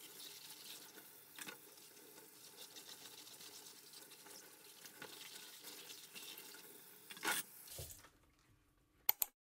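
Kitchen tap running into the sink while washed ceramic bowls are set down in a plastic drainer, with a few knocks of the bowls against it. The water stops about eight seconds in, and two sharp clicks follow near the end.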